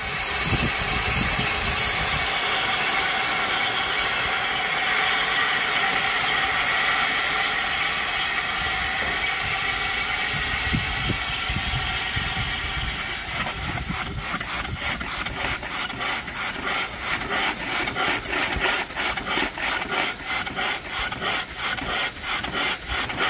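Small steam engine driving an Edwards-type wet air pump, with steam hissing steadily as it blows off around the cylinder. About halfway through, a regular chuffing of about two beats a second joins the hiss as the engine runs.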